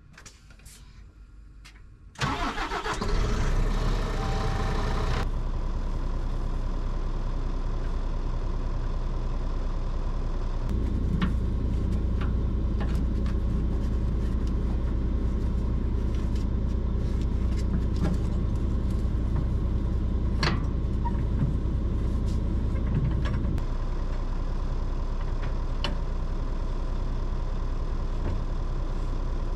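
Scania truck diesel engine cranked and started about two seconds in, then idling steadily, its low hum heavier for a stretch in the middle. Scattered light clicks and knocks over the idle.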